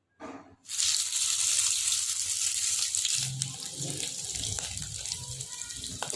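Water tap running into a sink, a steady splashing hiss that starts just under a second in, with soft low knocks from about three seconds in.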